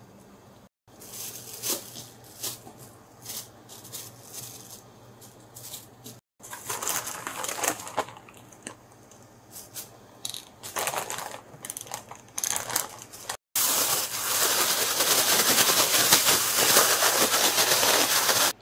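A clear plastic food bag holding raw onion rings and flour crinkling as it is handled, then shaken hard for about the last five seconds. The shaking is a dense, steady rustle and the loudest part. Earlier come separate runs of short crackles and clicks.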